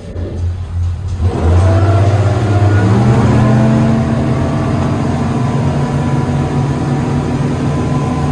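Twin outboard engines of a 2020 Pursuit 295 DC boat throttling up about a second in, their pitch rising for a couple of seconds and then holding steady at cruising speed, over a steady rush of water.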